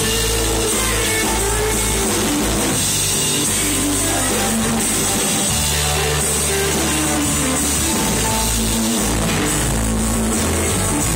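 Live band playing blues-rock: electric and acoustic guitars over drums, loud and continuous, recorded on a phone.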